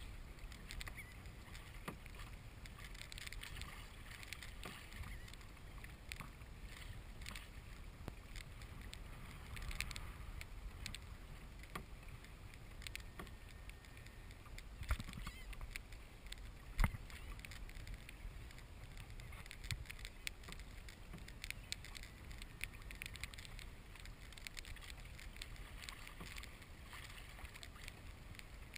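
Water sloshing and lapping against a Hobie Pro Angler 14 kayak's hull as it moves, with wind rumbling on the microphone. Scattered light knocks run throughout, with two sharper ones about halfway through.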